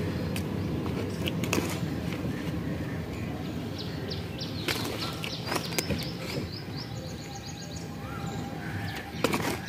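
Hands scooping loose potting soil out of a cut-down plastic water-jar pot, with soft scraping and occasional small knocks against the plastic, over a steady low outdoor background noise. A bird gives a quick run of short chirps about four seconds in.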